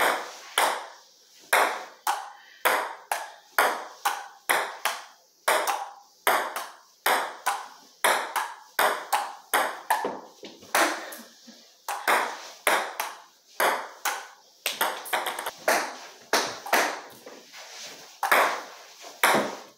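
Ping pong ball clicking against the table and the paddles in a long, steady rally, about two hits a second.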